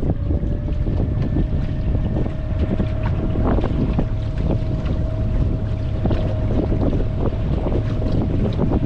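Wind buffeting the microphone in a heavy steady rumble, with choppy water knocking irregularly against a small wooden skiff. A steady thin whine runs underneath from just after the start.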